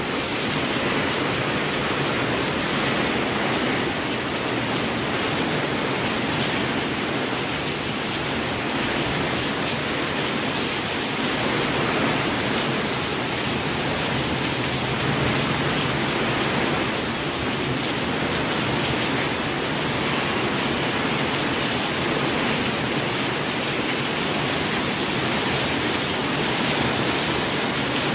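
Steady rain, an even unbroken hiss.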